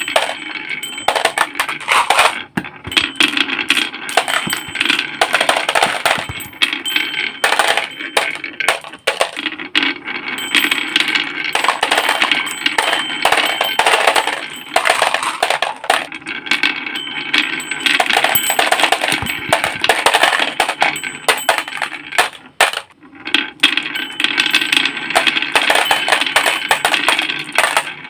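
Small toy cars clattering and clicking: a rapid, uneven stream of light hard knocks and clinks, with a few brief pauses.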